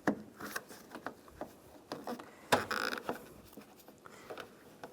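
Light clicks, taps and scrapes as a replacement interior door handle is worked into the door and lined up, with a sharper knock about two and a half seconds in.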